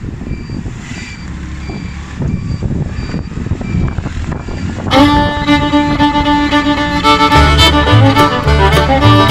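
Low rumble of a motorcycle ride, engine and wind on the microphone, with a faint beep repeating about twice a second. About five seconds in, loud music with a bowed-string melody comes in, and a beat joins near the end.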